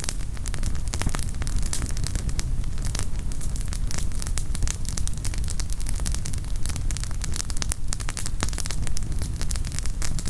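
Wood campfire burning, the firewood crackling with many sharp pops scattered throughout, over a steady low rumble.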